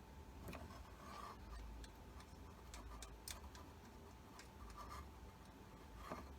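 Faint, scattered small ticks and short light scrapes of small-parts handling at soldering work on an instrument panel, over a faint steady hum.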